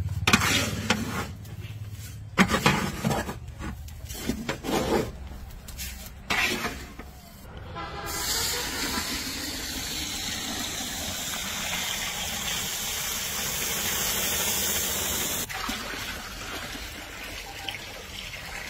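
A long metal spatula scrapes and stirs rice roasting in a large iron wok, in irregular scrapes for the first several seconds. Then water poured from a bucket onto the hot rice sets up a steady loud hiss and sizzle. The hiss cuts off abruptly about fifteen seconds in, leaving the splash of the pouring stream.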